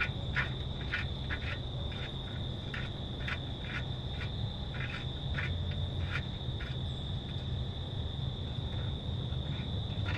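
Outdoor chorus of insects and frogs: a steady high-pitched insect trill, with short frog calls repeating irregularly about twice a second that thin out in the second half, over a steady low hum.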